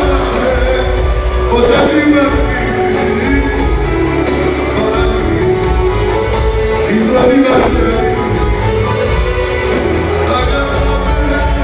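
Live band music with strong bass, played through a PA and heard from the audience in a large concert hall.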